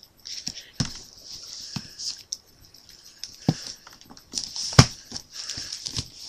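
Handling noise: packaging rustling and crinkling, with irregular sharp clicks and taps. The loudest is a knock about five seconds in.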